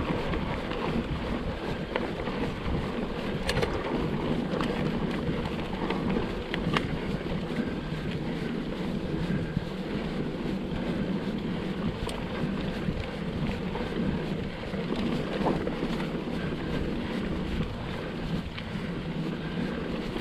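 Mountain bike riding down a rough trail: steady rolling noise from the tyres on the ground, scattered sharp knocks and clatters, and wind buffeting the microphone.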